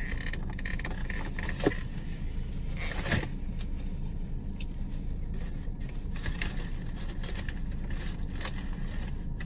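Steady low hum of a parked car's engine idling, with a few short clicks and light rustles as a fountain-drink cup is handled and sipped through a straw.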